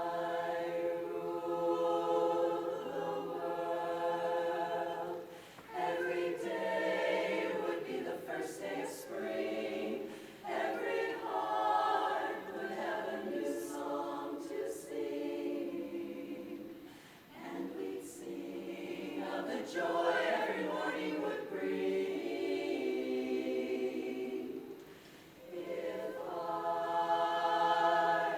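A 23-voice a cappella barbershop chorus singing in close harmony, holding sustained chords in long phrases, with brief pauses between phrases.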